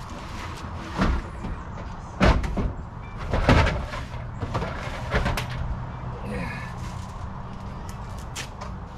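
Plastic tool cases being set down and shoved about on the metal shelf of a service truck's tool compartment: four clunks in the first five seconds or so, then a steady low hum.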